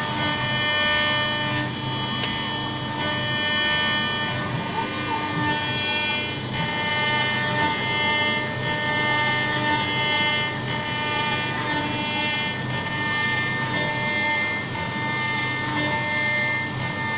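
Small CNC router's spindle running at high speed as its cutter engraves a copper plate: a loud, steady high-pitched whine whose tone shifts a few seconds in.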